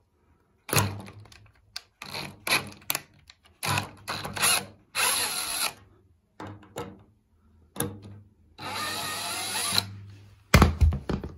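Cordless drill-driver spinning in short bursts, with two longer runs of about a second each, backing out the screws on an electric water-heater thermostat's wire terminals. Clicks and knocks come between the runs as the bit is set on each screw.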